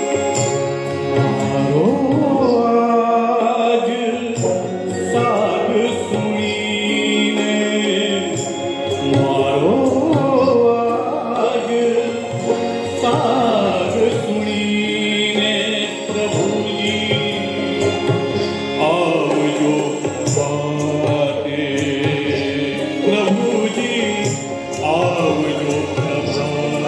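A male voice singing long, gliding phrases of an Indian devotional song over sustained harmonium notes, with a small accompanying band.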